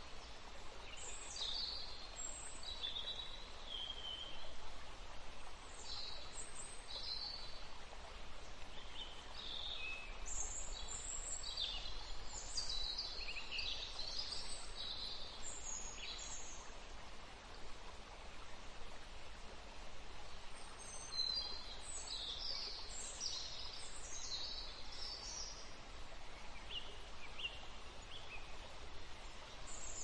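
Songbirds chirping and singing over a steady rush of flowing water. The calls come in busy clusters, thin out for a few seconds past the middle, then pick up again.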